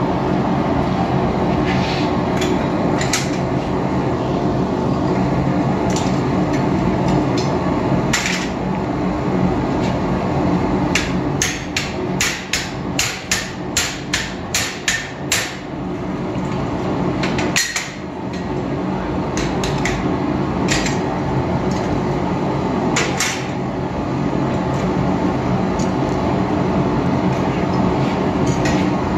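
Hammer blows on hot steel over an anvil, coming singly at first, then in a quick run of about two strikes a second for several seconds, then scattered again. Under them the gas forge burner runs with a steady rush.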